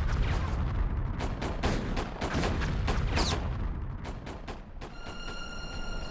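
Battle sound effects of gunfire and artillery, many irregular shots and booms in quick succession. About five seconds in they give way to a held, eerie music tone.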